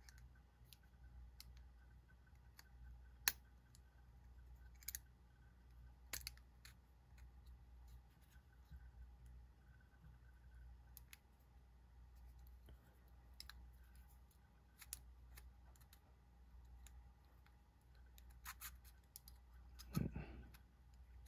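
Faint, scattered light clicks and taps of small metal knife parts and tools being handled during reassembly of a flipper knife, about eight over the stretch at irregular gaps. Near the end comes a short, duller sound.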